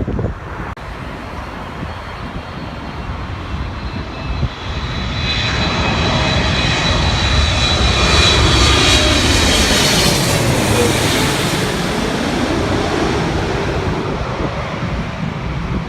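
Jet airliner passing by: its engine noise swells to its loudest about eight to ten seconds in, with a high whine over the rumble, then eases off.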